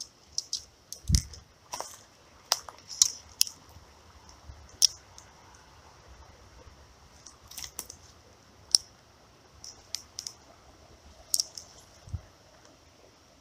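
Scattered sharp clicks and ticks from an ultralight spinning reel and rod being handled while a fish is played and reeled in. Two dull thumps, about a second in and near the end.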